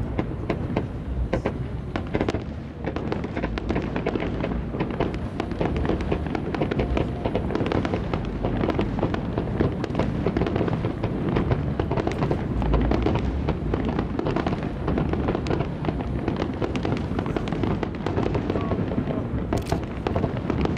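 Aerial firework shells bursting into crackling stars: a dense, continuous crackle of rapid pops, with deep low rumbles from the bursts swelling now and then.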